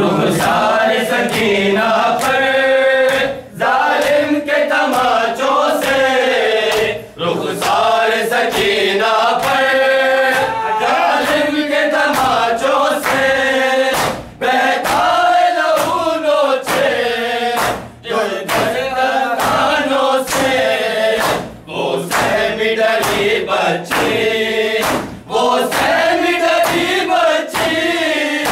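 A group of men chanting a noha, an Urdu Shia mourning lament, together in chorus, with hands slapping chests (matam) in a steady beat under the chant.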